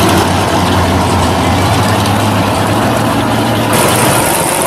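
1941 Willys drag car's engine idling steadily with a deep, low note. A high hiss comes in suddenly near the end.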